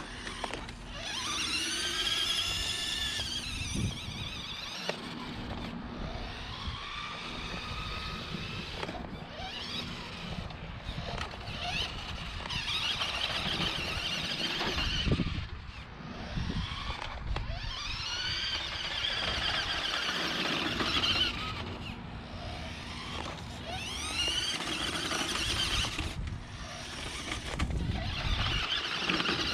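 The stock electric motor and gears of a 1997 Radio Shack Enforcer RC truck whining in low gear. The whine comes in repeated bursts a few seconds long, rising and falling in pitch as the throttle is worked.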